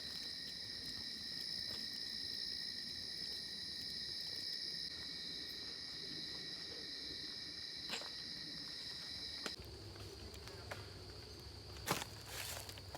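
Insect chorus of crickets, a steady high-pitched trilling that holds without pause, joined by a lower steady tone that fades out about three-quarters of the way through. A few faint clicks sound near the end.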